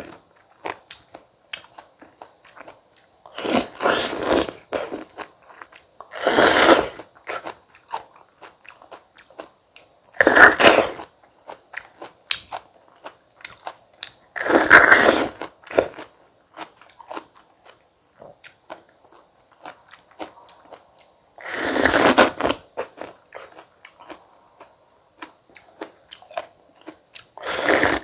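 Bites into crisp whole fruit, about six loud crunches a few seconds apart, with quieter wet chewing clicks in between.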